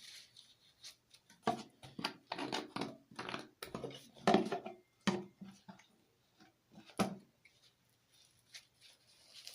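Soap-soaked wet toilet paper being squeezed and kneaded by hand, irregular squishing and rubbing noises, with a sharp click about seven seconds in.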